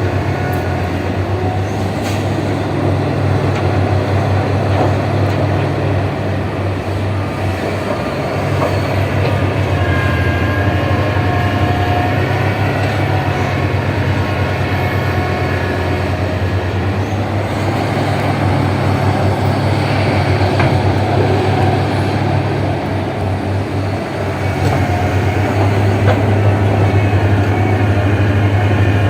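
Heavy diesel mining excavator running and working, a steady low engine drone with faint high squeals of metal and hydraulics now and then; it grows louder near the end.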